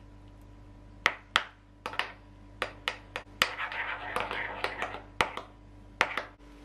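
Metal spoon stirring a creamy mixture in a small glass bowl, clinking sharply against the glass about a dozen times, with soft scraping between the clinks. The clinking starts about a second in and stops shortly before the end.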